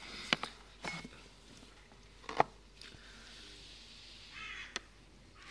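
A few sharp clicks and knocks of steel dissecting forceps and a glass petri dish being handled, the loudest about two and a half seconds in, with a brief scraping sound just before the last click.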